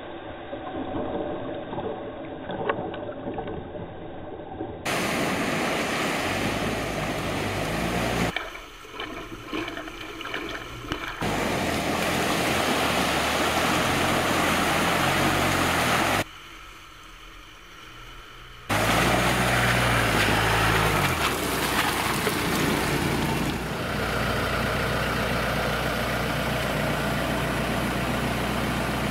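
Jeep Wrangler JK engines running and water and mud splashing as the Jeeps drive through a muddy pond, with the engine pitch rising and falling. The sound changes abruptly several times.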